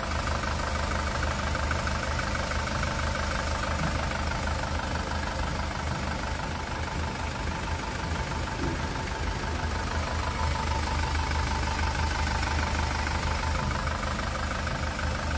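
Freshly rebuilt SsangYong Rexton Sports 2.2-litre four-cylinder diesel engine idling steadily with its normal light diesel clatter. It runs smoothly and quietly, with no heavy knocking: the rebored block and new crankshaft, pistons and bearings have cured the earlier fault.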